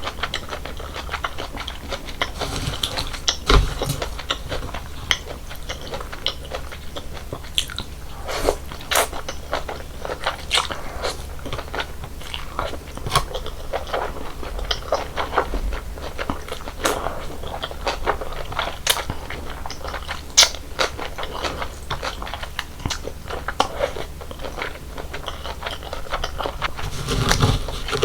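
Close-miked eating sounds of a person chewing cold noodles: steady wet chewing with many sharp, irregular crunches.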